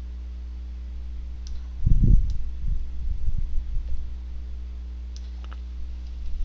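A computer mouse clicking faintly a few times over a steady low electrical hum, with a dull low thump about two seconds in.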